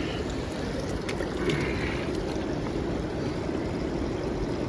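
Steady outdoor noise of wind and water, strongest in the low range, with a few faint clicks about a second in.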